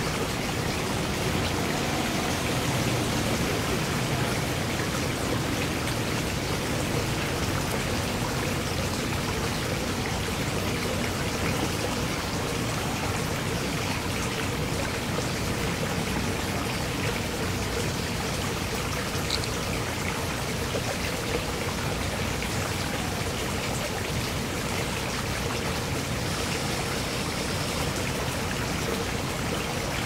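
Flowing water in a shallow garden stream: a steady, even rush without a break.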